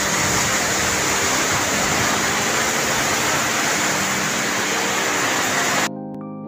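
Typhoon wind and heavy rain lashing trees: a dense, steady rush of noise that cuts off abruptly near the end.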